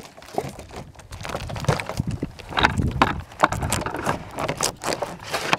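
Handling noise as denim cloth and plastic water jugs are pulled and shifted by hand: an irregular string of rustles, scrapes and light knocks.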